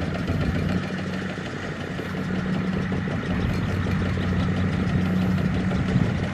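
Single-cylinder diesel engine of a Kubota two-wheel walking tractor running steadily under load, its wheels bogged in deep mud as it pulls a loaded rice cart.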